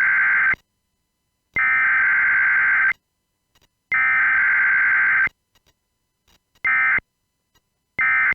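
Electronic alarm buzzer sounding in a set pattern of steady, high tones: three long beeps of over a second each, then short beeps, with dead silence between them.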